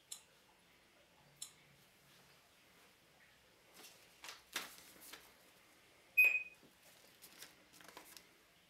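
Barcode scanner giving one short high beep about six seconds in, the confirmation that it has read a barcode. Before it come a few seconds of handling rustles, and there are two light clicks near the start.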